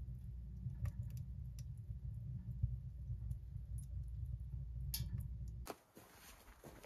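Small wood stove burning: a steady low rumble with scattered light clicks and ticks. Near the end it cuts off sharply to a much quieter outdoor background.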